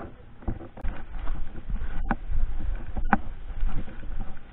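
Rustling and brushing through grass and brush, with handling noise on the body-worn camera, and two sharp clicks or snaps about two and three seconds in.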